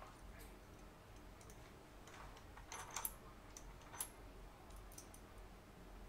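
Faint, light clicks of small aluminium bike headset spacers being handled in the fingers, a few scattered ticks with a pair about three seconds in and another at four.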